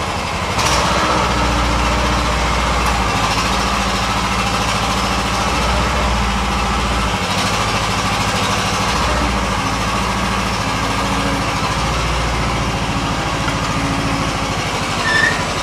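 Mini excavator's small engine running steadily at idle, a continuous low drone whose deepest tone swells and eases a few times.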